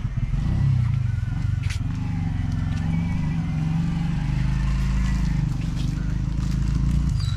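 A vehicle engine running steadily with an even, low hum. It starts abruptly and holds at a constant pitch.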